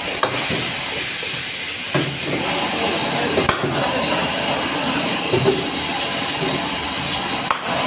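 Rice vermicelli and vegetables sizzling and steaming in a hot wok with a little water just added, while a metal spatula scrapes and strikes the wok a few times.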